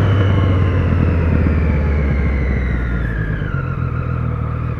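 Sport motorcycle engine running as the bike slows, its pitch falling steadily.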